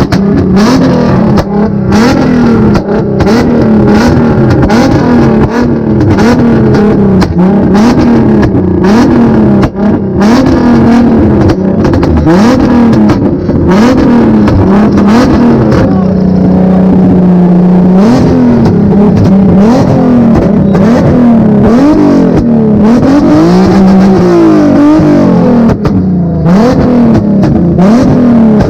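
A car engine being revved over and over in quick blips, each one rising and dropping back, about once a second. Around the middle it is held steady for a couple of seconds, and a higher, longer rev comes a little later.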